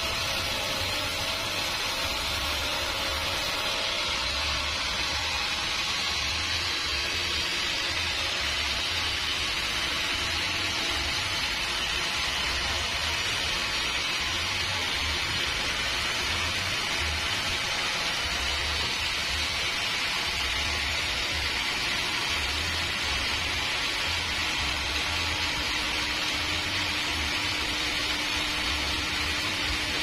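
Band sawmill running: a steady rushing noise from the motor and moving blade with a low, uneven rumble underneath, unchanged throughout.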